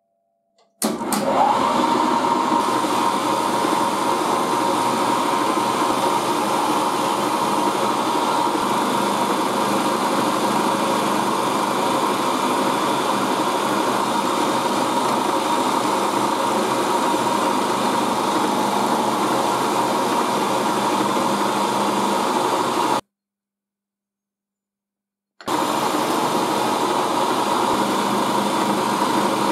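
Milling machine running, its end mill cutting into a small turned metal part, with a steady whine. It starts suddenly about a second in, cuts off about 23 seconds in, and resumes two to three seconds later.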